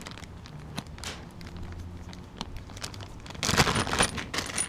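Small metal and rubber shock-mount parts clicking and rattling as they are handled, in a quick burst of clicks that starts about three and a half seconds in, over a faint low hum.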